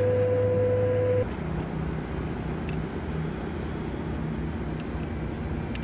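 A steady machine hum with a held tone cuts off about a second in. It gives way to outdoor noise with a faint low engine drone that comes and goes, and a few small clicks.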